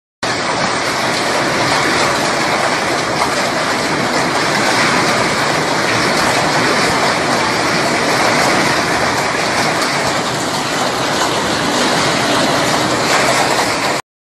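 Heavy hail pelting down, a dense, steady rush of countless hailstone impacts with wind; it cuts off abruptly near the end.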